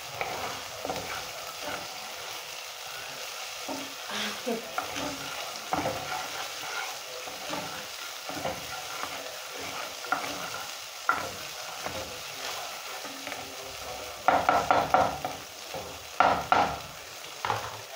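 Sausage and vegetables sizzling in oil in a frying pan over a gas flame while a wooden spoon stirs and scrapes through them. Near the end come a few bursts of quicker, louder scraping and knocking of the spoon against the pan.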